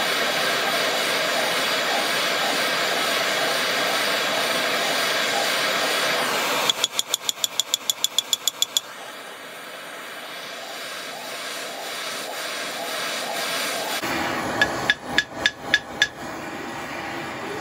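Blowtorch flame hissing steadily as it heats a seized stud in a rusty Lister vaporiser casting. About seven seconds in comes a fast run of about a dozen hammer taps on the casting, and near the end six more taps with the torch still burning: heat and shock to free the rusted stud.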